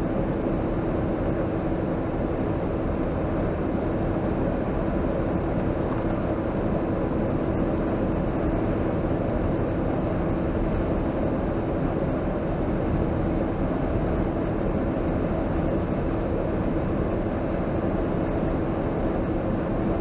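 Truck driving at road speed, heard from inside the cab: a steady engine hum over even road and wind noise, unchanging throughout.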